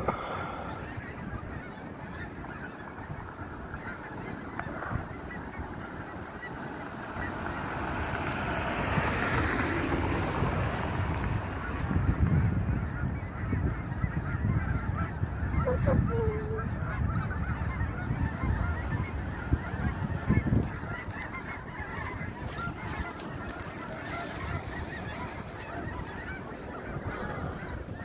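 A large flock of geese honking, a dense, continuous din of many overlapping calls, with a low rumble swelling through the middle.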